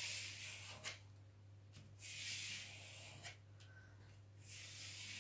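A hand sweeping over the plastic protective film of a diamond-painting canvas, smoothing it to push trapped air out from under it: three soft hissing rubs, each about a second long. A faint steady low hum runs underneath.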